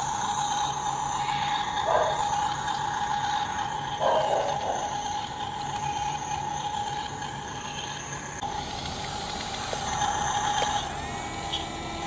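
Toy RC bulldozer's small electric motors and plastic gearing whirring in two short bursts, about two and four seconds in, over a steady hum.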